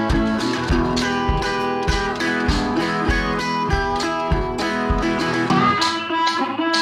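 Background music: guitar-led instrumental with a steady beat.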